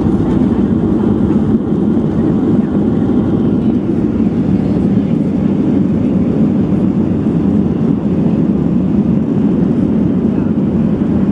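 Steady rumble inside the cabin of a Boeing 737-700 taxiing after landing: its CFM56 engines running at low power with the hum of cabin air and the rolling airframe.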